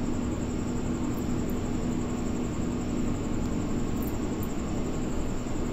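Steady background hum with a constant hiss, unchanging throughout.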